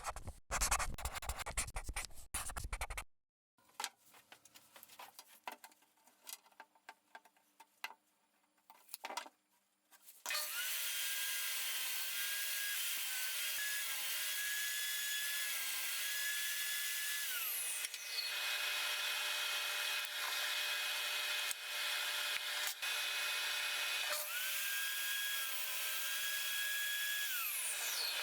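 Handling and scraping of wood, then an electric power tool cutting or working wood from about ten seconds in. Its motor whine winds down twice, near the middle and again near the end, as it is switched off.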